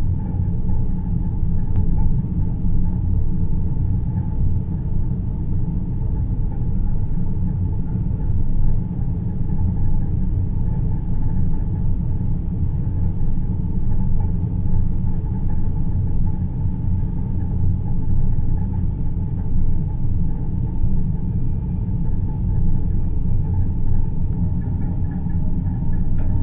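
Deep-space ambience soundscape of the white-noise kind: a steady low rumble, heaviest in the deep bass, with a fainter hum above it and no music.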